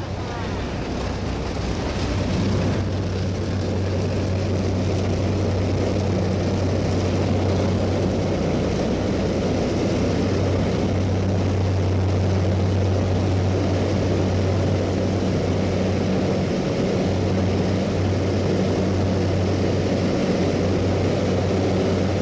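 Small propeller-driven jump plane's engine heard from inside the cabin while the plane rolls along the runway, a steady drone that grows louder about two seconds in and then holds.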